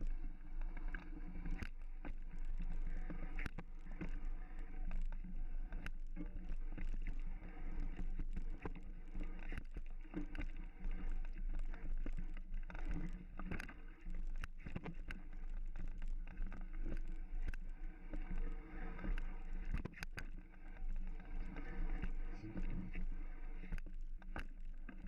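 Mountain bike riding along a dirt trail: a steady rush of tyres and wind buffeting the microphone, with frequent sharp clicks and knocks as the bike rattles over bumps. It cuts off suddenly at the end.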